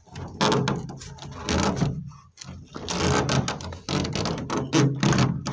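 A makeshift plywood door being shifted and shut against its metal frame: a busy run of knocks, scrapes and rattles of wood on metal.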